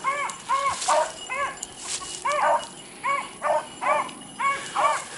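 Beagles baying while running a rabbit's scent trail. A steady string of short, rising-and-falling yelps comes at about two a second, the sign of hounds that have picked the track back up and are driving it.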